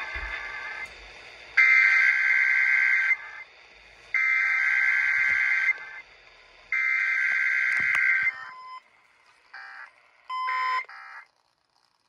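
Emergency Alert System SAME header data bursts played over an AM radio: three bursts of shrill, warbling two-tone data, each about a second and a half long with about a second's gap between them. They mark the start of a required weekly EAS test. A few short beeps follow near the end.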